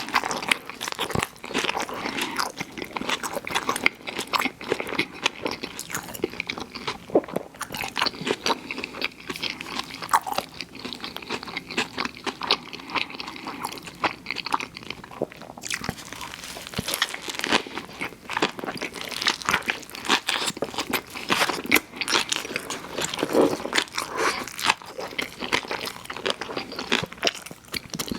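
Close-miked eating of fast food: crunchy bites and chewing, a steady stream of crackles and crunches.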